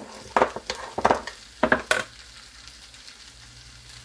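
Hash brown potatoes sizzling in a cast iron skillet, a faint steady hiss. A few sharp knocks and clatters of handling in the first two seconds are the loudest sounds.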